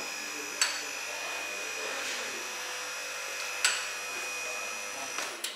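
Steady whine of a running machine over a low hum, with two sharp clicks about three seconds apart.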